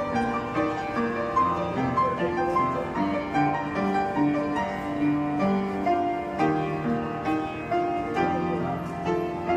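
Instrumental music with a steady flow of held notes.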